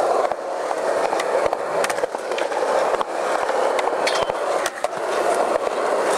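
Skateboard wheels rolling steadily over concrete, with a few sharp clacks of the board scattered through.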